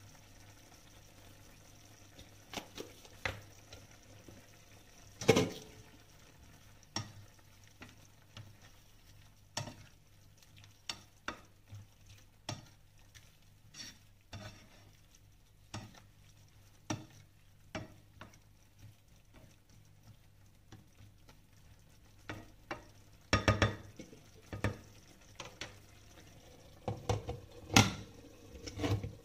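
A spatula stirring pork and mushrooms in a simmering sauce in a frying pan, making scattered taps and scrapes against the pan over a faint sizzle. Near the end the knocks come louder and closer together as the glass lid is handled and set on the pan.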